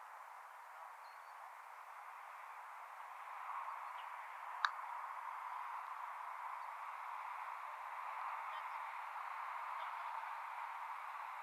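A single sharp knock about five seconds in, over a steady background hiss.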